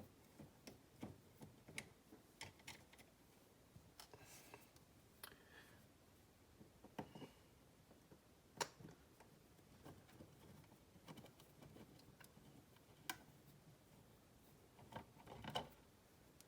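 Faint, scattered clicks and small taps of a screwdriver working screws out of a GFCI outlet, with a couple of brief scraping rasps a few seconds in.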